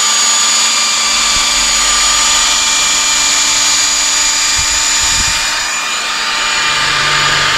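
DeWalt cordless drill running at speed, spinning a foam polishing pad against a plastic headlight lens: a steady whine. This is the polishing stage of a headlight restoration, working the compound into the lens under moderate pressure.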